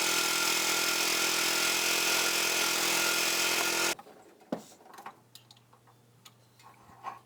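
Frontier OS31 portable sawmill's engine running steadily, cutting off abruptly about four seconds in. Only a few faint clicks and knocks follow.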